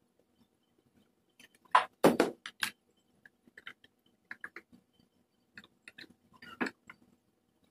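Plastic bumper parts being handled: knocks, clicks and crinkling as the black plastic grille frame is lifted and shifted on plastic sheeting, with the loudest cluster of knocks about two seconds in and lighter ticks after.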